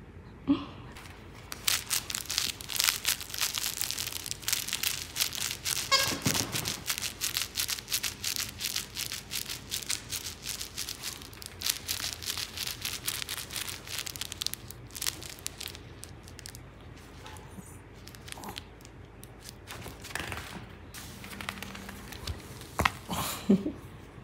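Crinkle-filled plush dog toy squeezed and worked by hand, giving a dense, continuous crinkling for about twelve seconds. It then eases off into scattered rustles, with a few short squeaks near the end.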